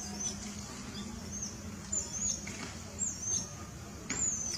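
A series of short, high-pitched chirping animal calls, about six in four and a half seconds, each rising and falling in pitch, over a steady outdoor background hum.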